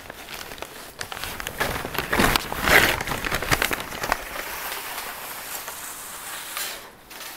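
Stiff kraft-paper wrapping crinkling and rustling as it is slid up and off a potted tree, loudest about two to three seconds in and dying away toward the end.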